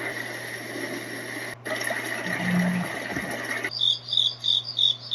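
White noise sound machine playing a steady noise track that cuts out briefly about a second and a half in. About three and a half seconds in, it switches to a recorded track of crickets chirping, about three chirps a second.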